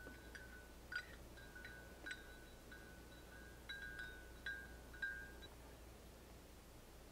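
Metal spoon stirring coffee in a ceramic mug, clinking against the sides. Each tap rings briefly with a clear bell-like tone, about ten clinks over some five seconds, then the stirring stops.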